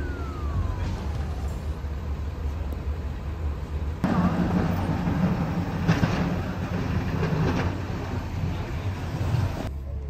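Street traffic engines rumbling steadily at a snow-covered intersection, with a tone sliding down in pitch in the first second or so. From about four seconds in, a louder rumble and hiss of snowplow trucks working the intersection takes over.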